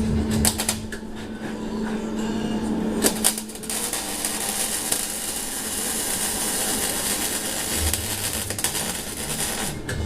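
110-volt MIG wire-feed welder arc crackling on a car's oil pan: a couple of short bursts early, then one long continuous bead of about six seconds that stops just before the end.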